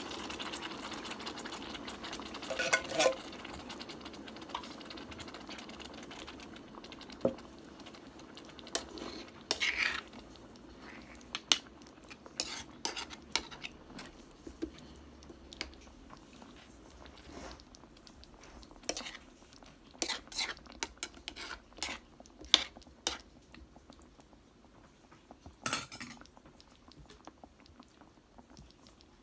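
Coconut milk pouring from a can into a steel pan for the first few seconds, then a metal spoon stirring the chicken and pork and clinking and scraping against the pan in scattered, irregular knocks.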